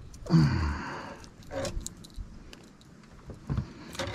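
Knocks, rattles and a jangle as a largemouth bass is swung aboard the boat and handled. The loudest rattle comes about a third of a second in and lasts about a second, followed by a few short clicks and knocks.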